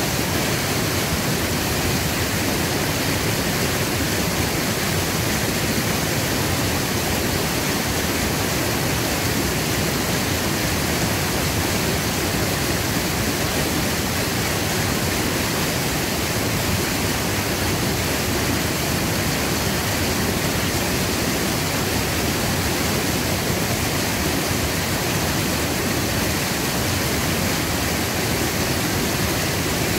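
Rain-swollen creek rushing through rapids: a steady, unbroken rush of water.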